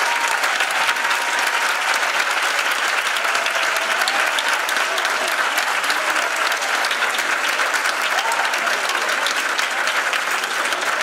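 Audience applauding steadily in a theatre hall, a dense, even clapping that holds at the same level throughout.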